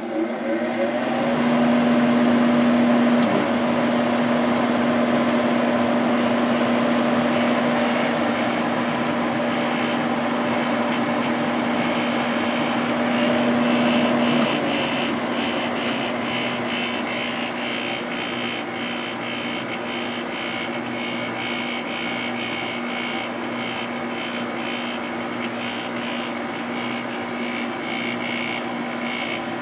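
Sharp window air conditioner switched on with a click and running, its fan blowing with a steady hum. About fourteen seconds in the hum drops away and the unit runs on a little quieter; the unit sounds healthy.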